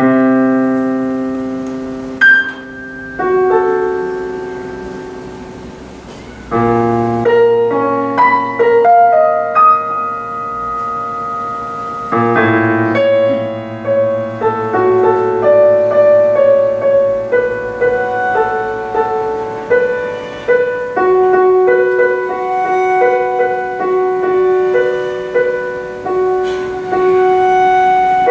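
A lullaby for cello and digital piano: the piano opens alone with struck chords that fade away, and the cello joins partway through with long bowed notes over the piano.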